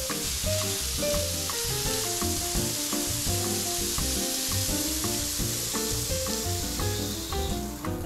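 Outdoor rinse shower spraying water with a steady hiss that stops near the end, over light background music.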